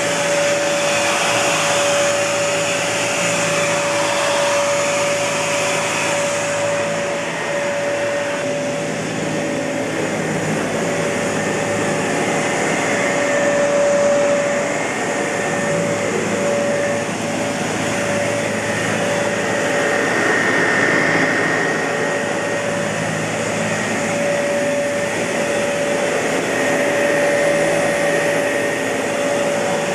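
Kenmore Elite Cleva upright vacuum cleaner running continuously: a steady rush of air with a constant whine from its Panasonic inducer motor, swelling and easing slightly.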